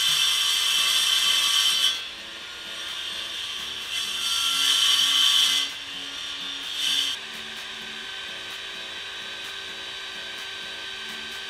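Benchtop table saw cutting a wooden 2x4 stud. The cut is loud for about two seconds, again from about four to nearly six seconds, and briefly near seven seconds. After that the saw runs on steadily and more quietly.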